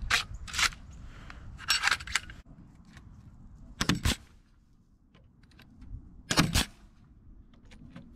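Nail gun firing, fastening metal joist hangers to a wooden beam: sharp shots spread over several seconds, several in quick pairs.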